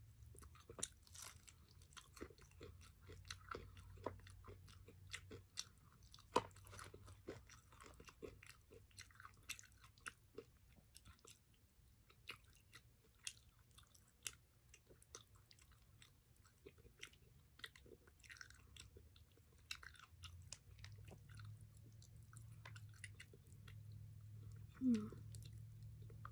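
Faint close-up chewing and biting of crispy fried chicken, with many small crunches and mouth clicks as the meat is picked off the bones.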